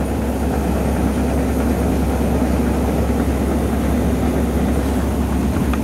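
Seed cleaning and treating machinery running with a steady low hum.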